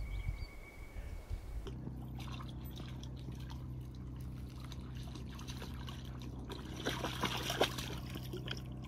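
Shallow lake water lapping and trickling gently at the sandy edge, over a low steady hum that comes in about two seconds in.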